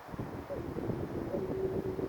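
Distant road traffic rumble and wind buffeting a parabolic microphone, with a steady drawn-out tone coming in about one and a half seconds in.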